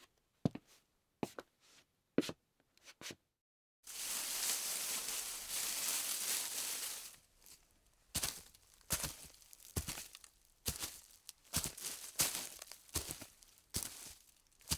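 Foley sounds performed close to the microphone: a few light taps, then after a brief cut about three seconds of steady hissing noise, followed by many quick irregular crackles.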